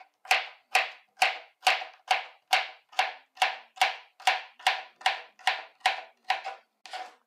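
Kitchen knife chopping a cucumber into small dice on a plastic cutting board: a steady run of sharp chops, a little over two a second, the last few lighter.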